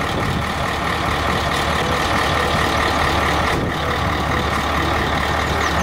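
Heavy truck engine running steadily: a low hum under a loud, even rushing noise.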